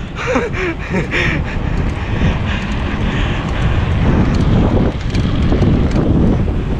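Wind rushing over an action camera's microphone while riding a bicycle, a steady low buffeting. Brief faint voices come in during the first second or so.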